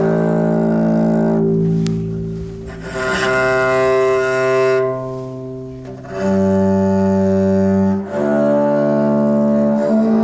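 Cello bowed in about four long held notes, each lasting roughly two seconds with short breaks between them. It is a play-test of the instrument just after its neck has been reglued.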